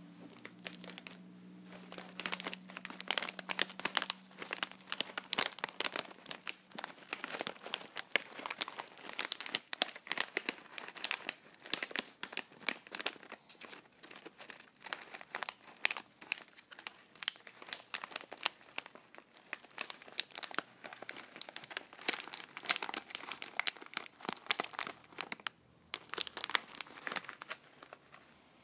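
Plastic packaging crinkled and scrunched by hand close to the microphone: a dense run of crackles with a brief pause near the end before more crinkling.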